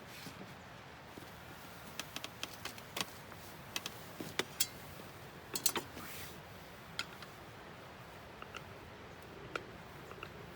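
Scattered sharp clicks and light knocks, several in quick clusters in the middle, over a faint steady hiss.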